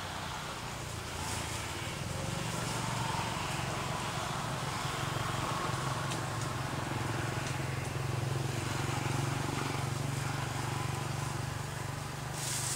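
A motor engine runs with a steady low hum, a little louder from about two seconds in, over outdoor background noise. A short rustle of noise comes near the end.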